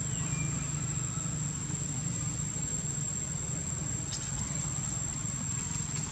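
Outdoor ambience: a steady high-pitched insect drone over a low steady rumble, with a faint short chirp near the start and a few faint ticks later on.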